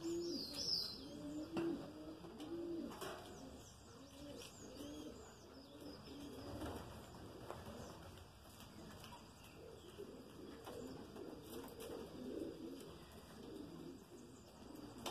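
Birds calling: a steady run of short, low cooing notes repeating over and over, with scattered high chirps above them, loudest in the first few seconds.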